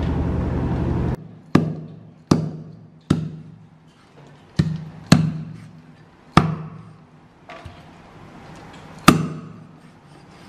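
A steady droning hum cuts off about a second in. Then a heavy cleaver chops through raw chicken into a round wooden chopping block: seven sharp, irregularly spaced strikes, each with a brief ringing decay.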